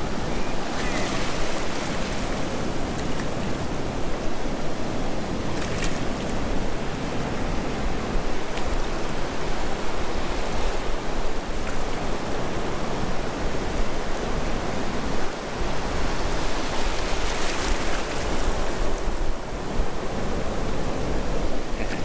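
Shallow surf washing in and out over the sand, rising a few times as waves wash up, with wind rumbling on the microphone.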